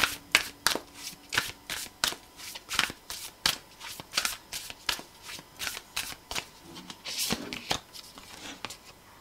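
A deck of oracle cards being shuffled by hand: a quick, even run of soft card slaps, about three a second, that stops shortly before the end.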